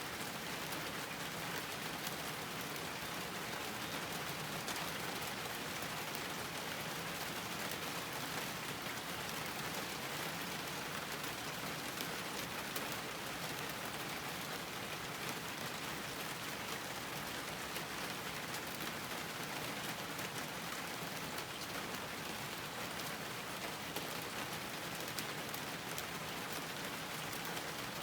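Steady rain falling on a garden, a continuous even hiss with the patter of many individual drops.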